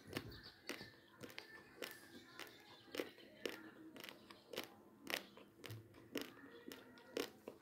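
Dry, uncooked basmati rice grains being chewed and crunched between the teeth: short sharp crunches at irregular intervals, about two a second.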